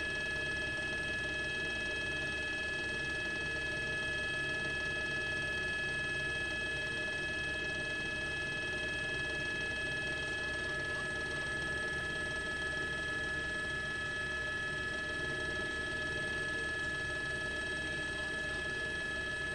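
News helicopter's turbine engine and rotor running steadily: a continuous mechanical drone with several high whining tones held at one pitch.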